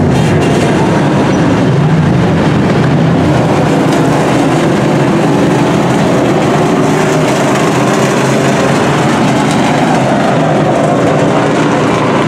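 Dirt-track racing trucks running laps together, their engines blending into a loud, steady drone with no sharp revving.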